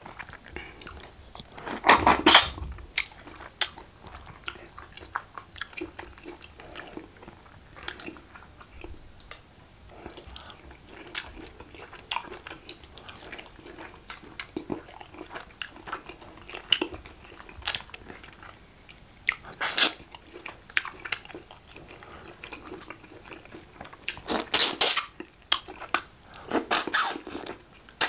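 Close-miked eating of catfish head by hand: steady chewing, lip smacks and small wet clicks, with a few louder sucking sounds about two seconds in, in the middle and twice near the end.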